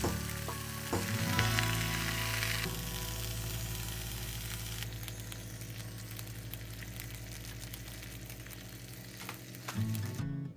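Eggs and sausages frying in a pan: a steady sizzle that grows fainter about halfway through, over background music.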